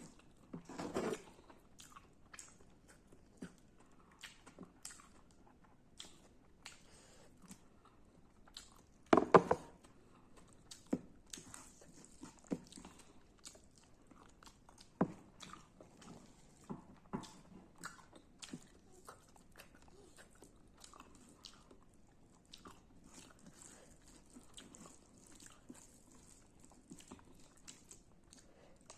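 Close-miked chewing and crunching of radish and rice, with many small wet clicks of the mouth and a louder crunch about a second in and again about nine seconds in.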